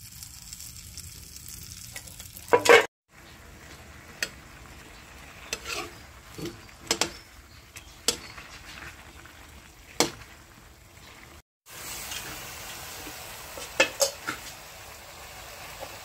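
Sausages frying in a little liquid and fat in a wok: a steady sizzle with sharp clicks and pops now and then.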